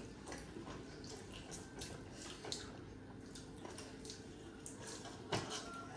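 Faint eating sounds: scattered small wet clicks and smacks of chewing, with light taps now and then, and one sharper knock about five seconds in.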